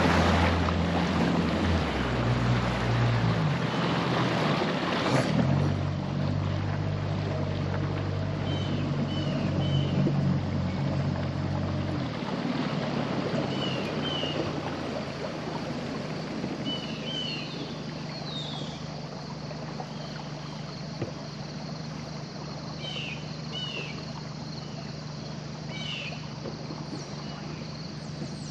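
Boat's outboard motor running and easing off in steps as the boat slows, dropping lower and quieter about twelve seconds in. Birds chirp in short bursts over the second half.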